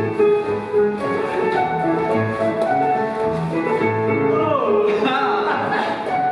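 Scottish country dance reel music playing with a steady, brisk beat of about two bass notes a second.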